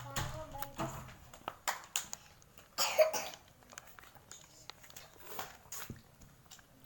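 A person eating ice cream close to the microphone: short wet mouth sounds and crunches, with one loud cough-like burst about three seconds in.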